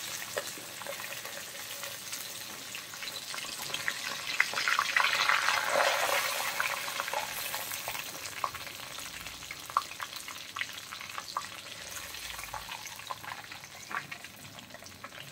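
Quail deep-frying in hot oil in an iron kadai, sizzling steadily and growing louder about four seconds in before easing off. Scattered light clinks and scrapes of a wire-mesh skimmer against the pan as the fried pieces are scooped out of the oil.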